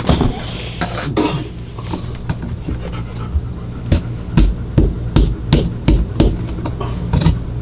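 Sharp knocks and scraping from a hand tool working at the RV toilet's floor flange and old seal, becoming a steady run of about three knocks a second in the second half.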